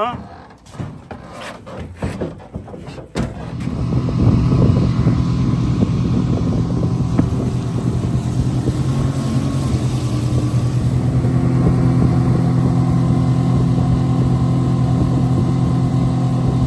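Knocks and clatter aboard a small aluminium jon boat. Then, about three seconds in, its outboard motor comes up to speed and runs steadily under way, with water rushing along the hull.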